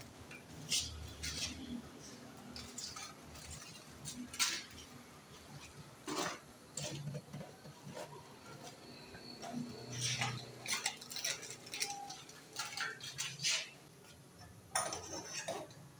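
Quiet, scattered clinks and knocks of kitchen dishes and utensils being handled, coming irregularly a second or more apart.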